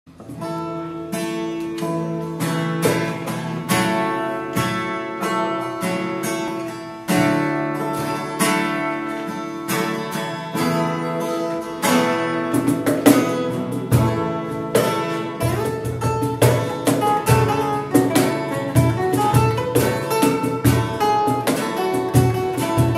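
Acoustic guitar playing a song's instrumental introduction, picked notes and strummed chords; about two thirds of the way in, a regular low beat joins.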